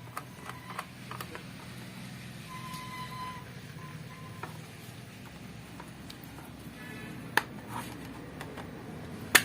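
Light clicks and knocks from handling and opening a digital multimeter's plastic case by hand, with a sharper click near the end, over a faint low hum.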